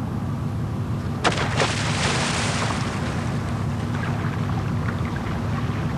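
A packed life raft container, thrown overboard, hits the water about a second in with a sharp smack and a splash that dies away over a couple of seconds, over a steady low hum.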